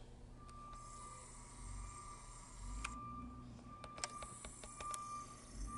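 Faint whine and small clicks from a camcorder's zoom and focus motor as the lens zooms in, picked up by the camera's own microphone over quiet room tone. The whine comes and goes, with a cluster of clicks around the middle.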